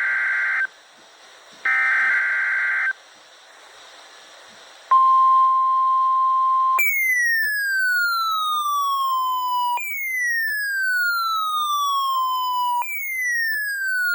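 NOAA Weather Radio weekly-test alert: the last two bursts of the SAME digital header, a harsh warbling screech about a second each. About five seconds in, a steady single-pitch warning alarm tone starts. After about two seconds it gives way to an electronic siren of falling-pitch sweeps, three in a row, about three seconds each.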